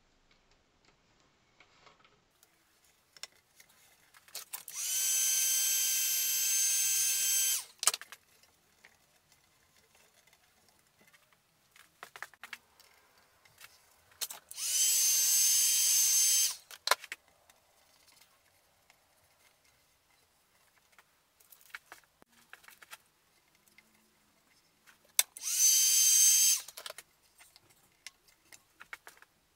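Heat gun switched on three times for two to three seconds each: a steady fan whine and rush of air whose pitch climbs as it spins up, used to warm aluminium-backed bitumen flashing so it sticks. Faint crinkles and taps of the foil being pressed down between bursts.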